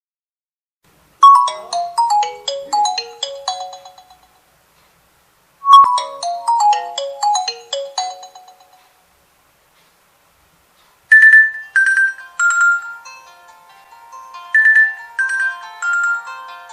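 Stock Nokia 2.2 ringtones playing. A short phrase of quick, mostly falling notes plays twice with a short gap between. After a pause, a different ringtone with held chords under a melody starts.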